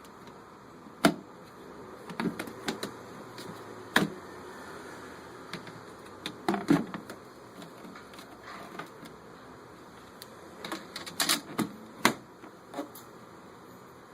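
Irregular clicks and knocks, with several sharper ones, as the pedal-powered mini washing machine is handled, over a steady background hiss.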